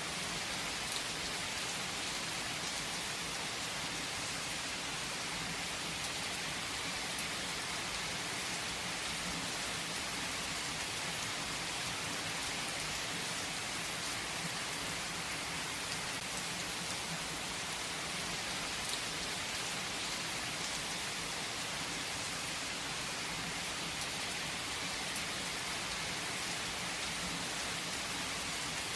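Heavy rain falling on a tree's leaves, a steady dense hiss with scattered individual drop taps.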